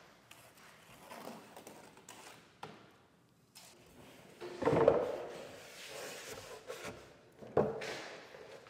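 A few knocks and clunks of handling, the loudest about five seconds in and another sharp one near the end.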